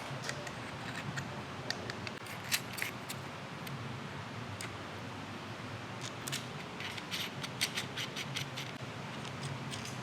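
Scattered light clicks and clinks, bunched about two and a half seconds in and again in the second half, over a steady low hum.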